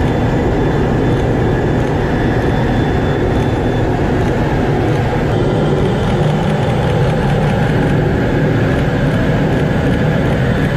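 Steady, loud rush of jet engine and airflow noise heard aboard a Blue Angels jet flying in close formation, the tone shifting slightly about five seconds in.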